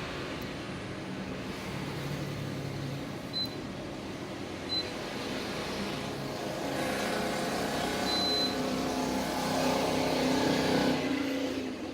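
Daikin FTNE25MV14 1 PK wall-mounted split air conditioner indoor unit running with a steady noise, its casing vibrating while the fan blows weakly. A few short high beeps sound. A louder, pitched rumble swells from about halfway and drops away near the end.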